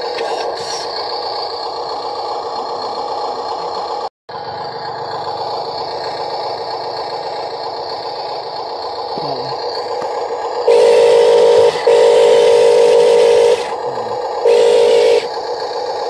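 Huina RC dump truck's electric drive whining steadily as its tyres rattle and scrape over loose gravel. It cuts out for a moment about four seconds in, and grows much louder twice near the end as the truck is driven harder.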